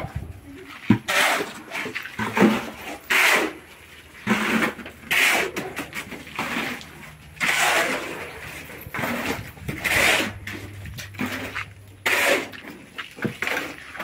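Steel shovels scraping and scooping wet concrete and gravel, one rasping stroke every second or so.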